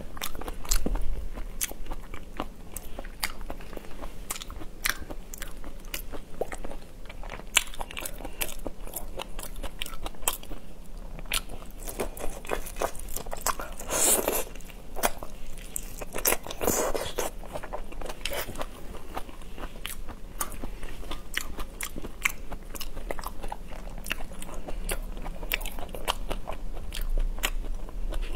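Close-miked eating of whole raw shrimp in spicy sauce: wet biting, crunching and chewing, a dense run of sharp crunchy clicks. There are louder, longer spells of crunching about 14 and 17 seconds in.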